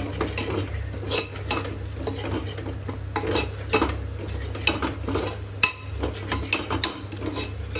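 A metal spoon stirring and scraping spiced masala frying in a pressure cooker pot, with irregular clinks against the metal over a low steady hum.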